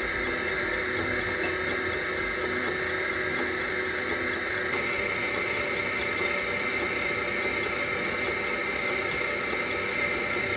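Stand mixer's motor running steadily as it whips heavy cream, a constant whine that steps up slightly in pitch about halfway through. A few light clinks of a metal spoon against a small bowl.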